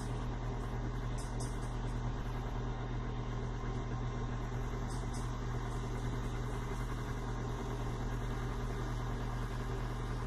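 KitchenAid stand mixer's motor running at a steady speed with an even hum, driving the pasta roller attachment as a sheet of dough is fed through the rollers.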